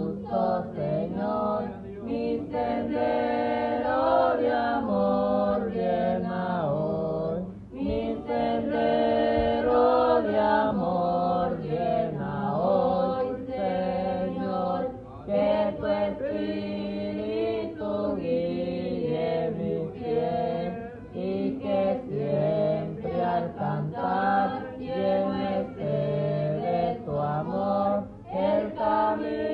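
A boy and a girl singing a Spanish-language worship song together into handheld microphones, in phrases with brief breaths between them.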